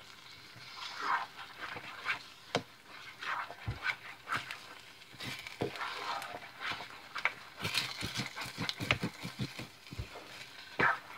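Silicone spatula stirring thick food in a metal pot, with irregular wet squelches, scrapes and knocks against the pot.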